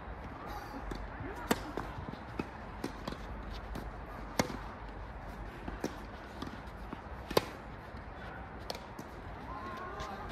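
Tennis rally: racket strikes on the ball about every one and a half seconds. A loud near-side hit comes every three seconds, with a fainter hit from the far side of the court between them.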